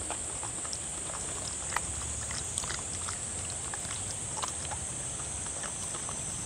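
Dog eating a wet meal of seaweed soup from a dish, lapping and chewing with many small, irregular wet clicks and smacks.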